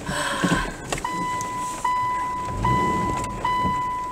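A car's electronic warning beeper sounds a steady single-pitch tone in long beeps with short breaks, a little over one a second, starting about a second in. Under it there is a low vehicle rumble as the car creeps to a stop.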